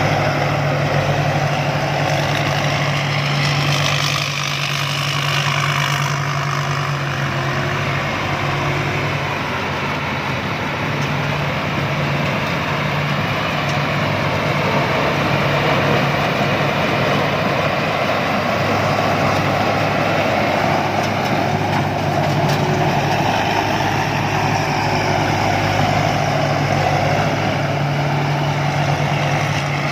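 Rice combine harvester engine running steadily at an even speed: a deep, constant drone with a broad machinery rush over it.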